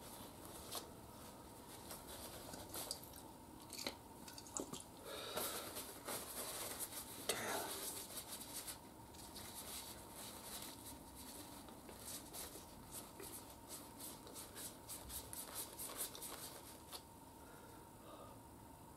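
Small metal gear-shifter parts being cleaned of old grease by hand: light clicks, taps and scraping, with a longer stretch of rubbing about five to eight seconds in.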